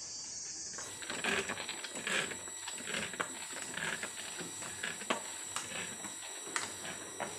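Hand-pumped knapsack sprayer at work: irregular mechanical clicking and creaking from the pump over a steady hiss, with footsteps on a bamboo slat floor.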